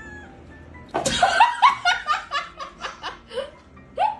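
A person laughing hard: a rapid run of high-pitched "ha-ha" bursts, about five a second, starting about a second in.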